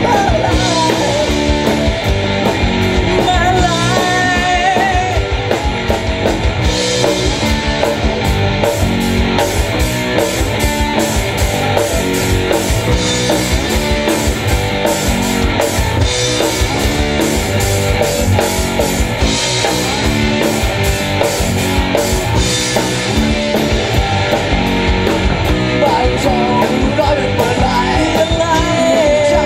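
A live amateur rock band playing a loud, steady rock song: bass, electric guitar and drum kit, with a singer on lead vocals, heard through stage PA speakers.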